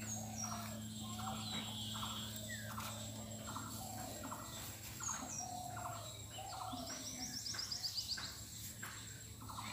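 Birds calling: short falling whistles and regularly repeated chirps, with a fast trill about seven seconds in, over a steady low hum.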